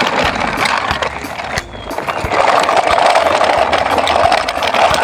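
Toy truck running across the floor: a steady whirring with scattered light clicks and knocks.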